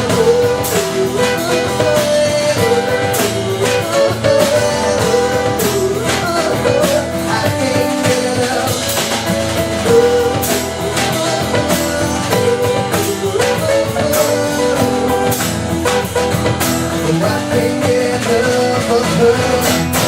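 Live blues band playing an instrumental passage, guitar over drums, to the end of the song; the music stops suddenly right at the end.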